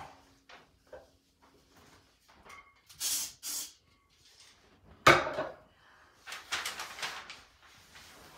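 Newspaper pages rustling, with two short hisses of an aerosol spray can about three seconds in. A louder sudden burst of noise comes about five seconds in, followed by about a second of crackling.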